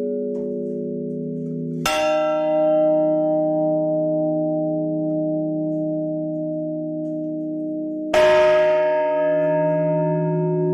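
Church bells tolling a funeral toll, rung by hand in a bell tower. Two single strokes about six seconds apart, the first about two seconds in and the second near the end, each on a different pitch. Each stroke rings on in a long, slowly fading hum.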